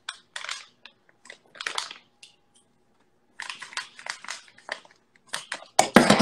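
Paper bag of brown sugar crinkling and rustling as it is handled and opened. The crackles come in bursts with a short pause in the middle, and the loudest crackle comes near the end.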